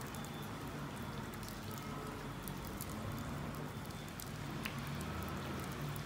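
JR Kyushu 815 series electric train standing at the platform, its on-board equipment humming steadily, with rain dripping and pattering around it and one sharper tick near the end.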